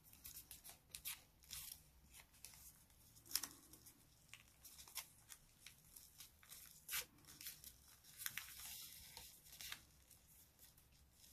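Faint rustling and crisp little crackles of a sheet of colored paper being folded and creased by hand, with a sharper crackle about three seconds in and a longer rustle about eight seconds in.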